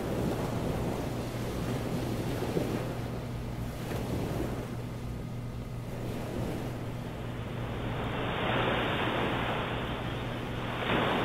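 Ocean surf washing in and drawing back, swelling about eight seconds in and again near the end, over a steady low hum.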